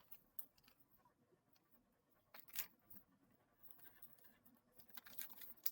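Near silence, with a few faint scattered rustles and taps of folded paper being handled.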